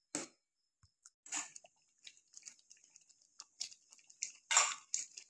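Spatula stirring thick spinach gravy with paneer cubes in a kadhai: intermittent soft wet squelches and scrapes, with a louder knock about four and a half seconds in.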